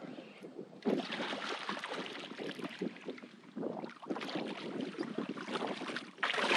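Wind rushing over the microphone, with water splashing and lapping around a kayak. It picks up about a second in and surges again near the end.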